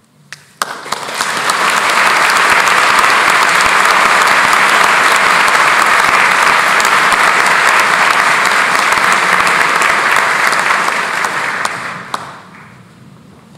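Large audience applauding: the clapping starts abruptly about half a second in, swells to a dense, steady clatter, and dies away about twelve seconds in.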